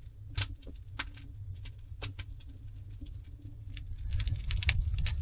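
Wood fire in a stove crackling, with irregular sharp pops over a steady low rumble; from about four seconds in a louder rustling joins it.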